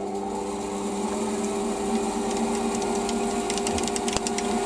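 Metal lathe running with an offset workpiece in its four-jaw chuck: a steady motor and gear hum. A cluster of light ticks comes about three and a half seconds in.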